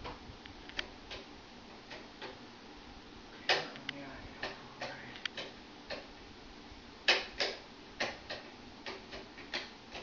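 Toggle switches on a wiring board being flipped on and off: a run of sharp, irregular clicks, the loudest about three and a half seconds in and twice about seven seconds in.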